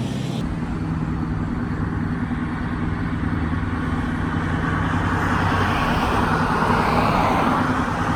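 An engine running steadily, with a rushing noise that swells louder toward the end.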